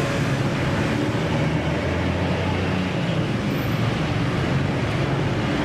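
A steady rumbling vehicle noise: a low hum under an even hiss, holding one level throughout.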